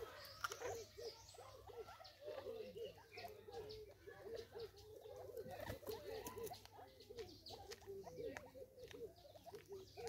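Francolins feeding at a seed feeder, giving soft, low clucking calls: short notes repeated several times a second, with light clicks of pecking and footsteps.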